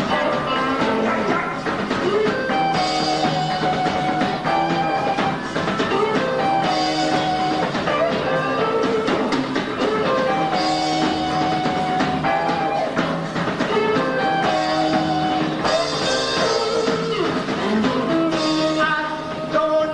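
Live rock band playing an instrumental passage: guitars over bass and a drum kit, with cymbal crashes about every four seconds.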